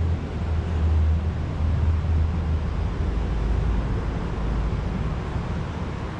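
Steady low rumble of traffic crossing the concrete highway bridge overhead, heard from underneath, a little louder in the first couple of seconds.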